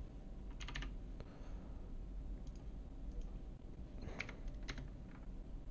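Computer keyboard keystrokes and mouse clicks, faint and scattered in a few short clusters.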